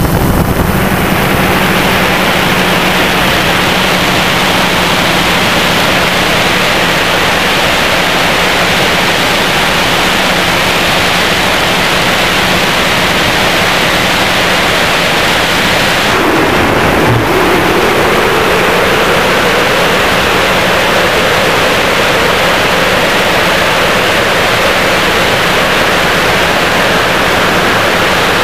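DJI Phantom 2 quadcopter's propellers and motors in flight, picked up by the camera on the drone as a loud, steady rushing hiss over a low hum. About sixteen seconds in, the hiss briefly thins and a mid-pitched tone dips and rises again.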